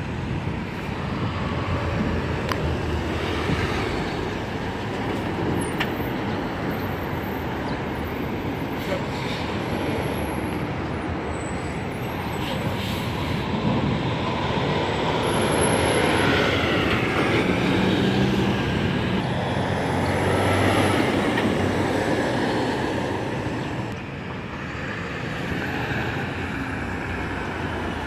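Steady road traffic passing close by, heavy trucks among the cars. It grows louder about halfway through as a truck hauling a multi-axle dump trailer goes by, its engine note showing for several seconds, then eases off.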